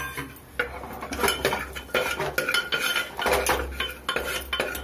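Metal spoon stirring and scraping against the inside of a pressure cooker in a quick, irregular run of scrapes and clinks, turning fenugreek seeds and spices frying in hot oil.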